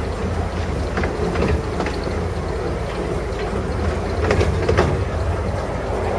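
Narrow-gauge passenger train carriage running along the track: a steady rumble of the wheels, with scattered sharp clicks as they pass over rail joints.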